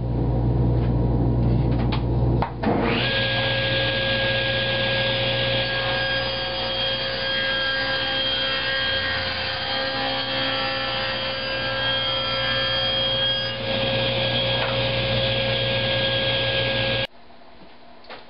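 Sliding table saw and dust collector running, with the blade ripping a taper along an ash board from about three seconds in until past the middle, when a steady whine rides over the cutting noise. The sound cuts off abruptly near the end.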